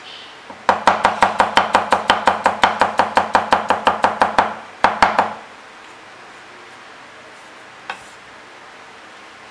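Chinese cleaver slicing garlic cloves thin on a round wooden chopping block: a fast, even run of knife taps, about seven a second, for nearly four seconds, then two more taps and a pause with one light knock near the end.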